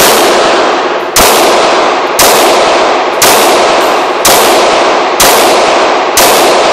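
FN Five-seven pistol firing 5.7×28 mm rounds: seven shots in a steady string, about one a second. Each shot rings on in the echo of the indoor range.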